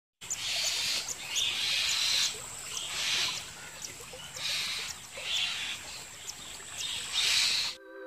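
Asian paradise flycatcher nestlings begging in the nest: raspy, hissing calls in repeated bursts about once a second, over a faint steady high whine. Music comes in right at the end.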